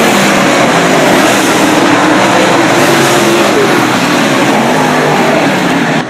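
Dirt late model race cars running at speed on a dirt oval, their V8 engines loud and continuous, the engine pitch swelling and falling as cars go past.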